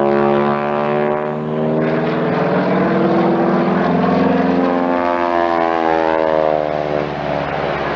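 Propeller airplane of an aerobatic wing-walking act, its engine running at power as it flies past. The engine's tones sweep down and then back up through the pass.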